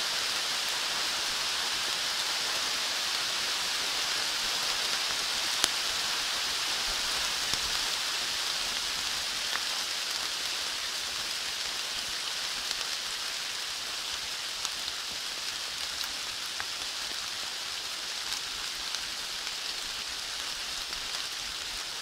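Steady spring rain falling on forest leaves, with scattered single drops ticking close by. It eases a little in the second half.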